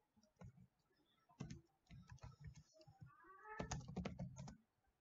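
Computer keyboard typing: faint keystrokes in short bursts, the busiest run of keys about three and a half seconds in.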